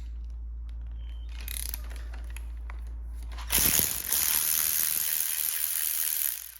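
A 3/8-inch-drive ratchet with a 10mm socket backing out the bolts of a motorcycle turn-signal mount: a few light tool clicks, then about halfway in a dense, continuous run of ratcheting for about three seconds.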